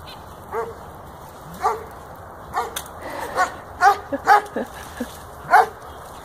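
Pomsky (Pomeranian–Siberian Husky cross) puppy giving a string of about nine short barks and yips at irregular intervals.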